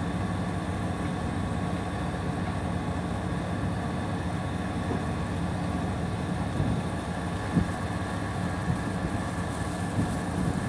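An engine running steadily at idle, a low even hum, with a few light knocks in the second half.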